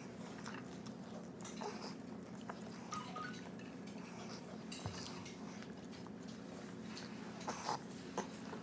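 Faint eating sounds: chewing and small clicks of fingers and utensils at a bowl, a few slightly louder near the end, over a steady low hum.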